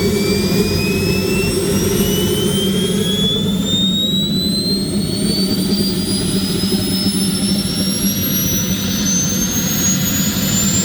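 Large RC jet's kerosene gas turbine accelerating in its automatic start sequence. A steady rushing run under a high whine that climbs smoothly in pitch throughout as the turbine spools up.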